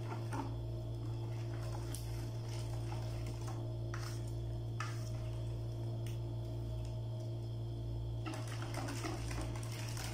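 A wire whisk stirs a thick cream, milk and gelatin-cube mixture in a plastic bowl, with a few light taps of the whisk against the bowl. A steady low hum runs underneath.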